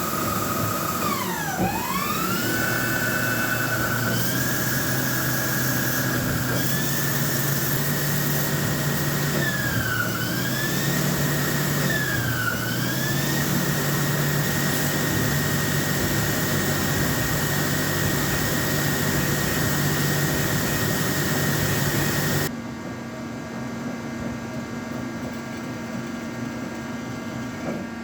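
Ajax Victor CNC lathe running while turning bronze bar: a steady spindle whine over machine noise, the pitch dipping sharply and climbing back three times as the spindle changes speed, then holding steady. About 22 seconds in the whine drops out abruptly, leaving a quieter steady hum.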